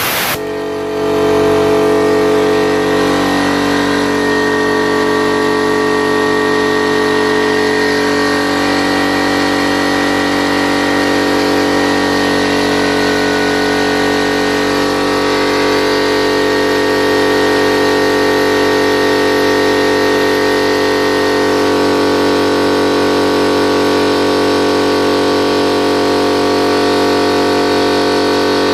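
ALDI piston air compressor running steadily, its motor and pump filling the tank with air. It is on a test run after a head gasket repair, building pressure towards the 120 psi cut-out.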